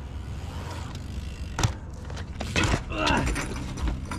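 BMX bike crashing onto skatepark concrete as the rider bails: a sharp impact about a second and a half in, then more clattering a second later, with a brief voice.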